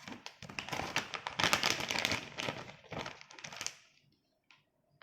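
Laminated aluminium-foil stand-up pouch crinkling as it is handled, a dense run of crackles that stops a little under four seconds in, followed by a few faint ticks.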